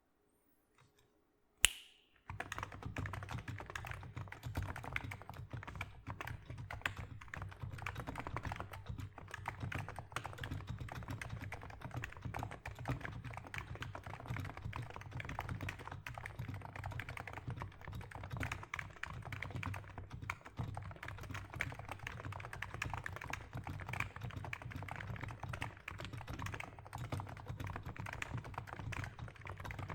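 A single sharp click about two seconds in, then continuous fast typing on a Niz Plum 75 keyboard with 35 g electrostatic capacitive dome switches: soft, rapid keystrokes with no pauses.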